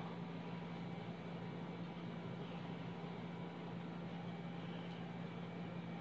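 Steady room noise: an even hiss with a low hum under it.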